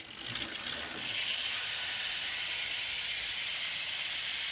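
BMX rear hub ratcheting as the rear wheel spins freely. Its pawls click so fast that they blur into a steady, pretty loud buzz, building up over the first second.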